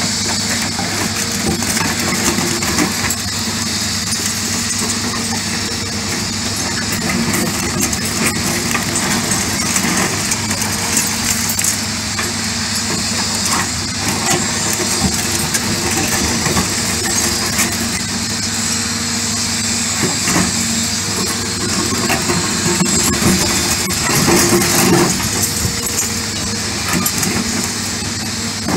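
Excavator diesel engine running steadily while a Green Attachments Yellow R 30 rotating hydraulic pulveriser crushes reinforced concrete, with scattered cracks and crunches of breaking concrete over the engine hum.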